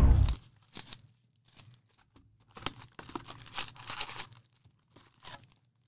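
A 2020 Panini Prizm No Huddle football card box being torn open by hand, its foil-wrapped packs crinkling as the flap is lifted: a series of short tearing and crinkling sounds, busiest in the middle. Music cuts off just as it begins.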